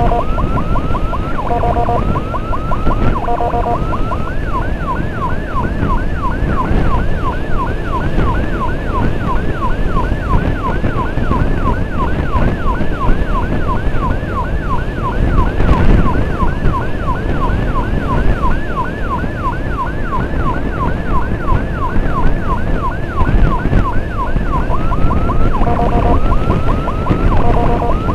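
Emergency vehicle siren in a fast yelp of about three rising-and-falling sweeps a second, with short choppy stepped tones at the beginning and again near the end. Motorcycle engine and road noise run underneath.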